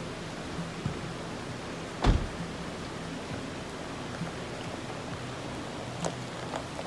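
Steady rushing noise with one heavy thump about two seconds in and a lighter knock near the end.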